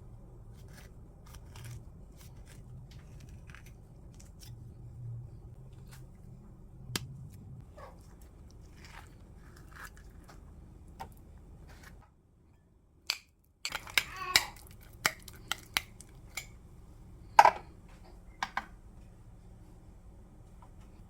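Kitchen utensils and dishes being handled: scattered light taps and clicks over a steady low hum, then a quick burst of clatter and a few sharper knocks, one of them loud, after a brief silent break.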